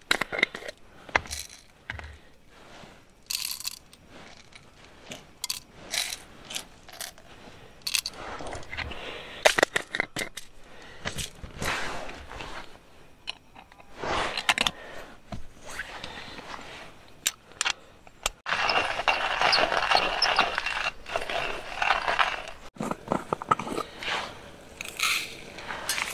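Coffee-making gear handled at close range: a metal hand coffee grinder, jars and screw lids clicking, knocking and scraping. About two-thirds of the way in there are a few seconds of denser, gritty scraping.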